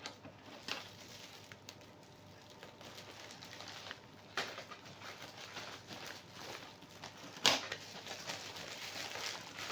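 Intermittent rustling and crackling of packaging being handled, with one sharp click about seven and a half seconds in.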